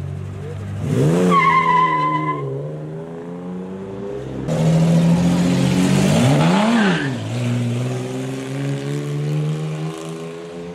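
Chevrolet Opala straight-six idling and revved sharply twice, about a second in and again around six and a half seconds, each time dropping straight back to idle. A high steady whine rides the first rev, and a loud rushing hiss comes in around four and a half seconds and fades about three seconds later.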